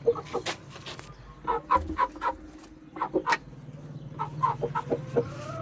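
Aseel chickens clucking in short clusters of quick calls, with a longer call bending in pitch near the end.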